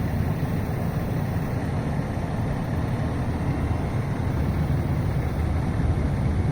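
Fire truck's diesel engine idling steadily, a low, even rumble.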